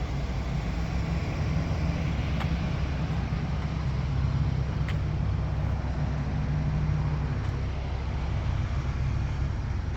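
A motor vehicle's engine running steadily at a low idle, a low hum with a few faint ticks.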